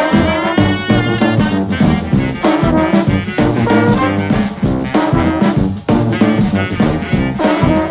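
Upbeat background music with brass instruments, in a jazzy swing style.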